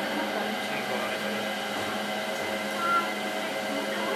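Steady machine hum of a shop interior, with one brief high tone about three seconds in.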